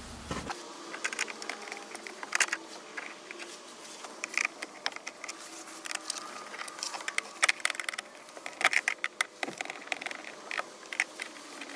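Screwdriver backing out the screws that hold a 1999 Toyota 4Runner's instrument cluster in the dash: irregular small clicks, ticks and scrapes of the tool and screws against metal and plastic.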